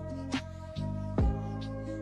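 Background music: held chords over a steady drum beat, with a low kick drum and a snare.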